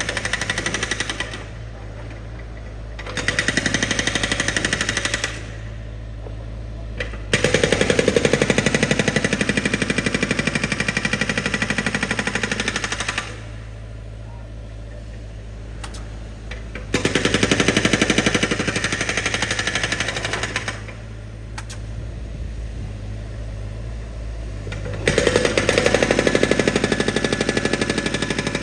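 Construction drilling machine's percussive hammer running in spells of rapid blows, a few seconds each, stopping and starting five times, with a steady low engine hum carrying on in the pauses.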